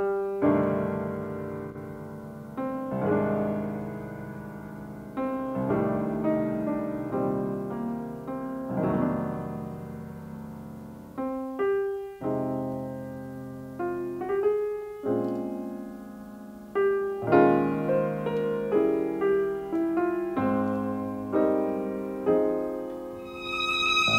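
Background music: piano playing slow chords, each struck and left to fade before the next.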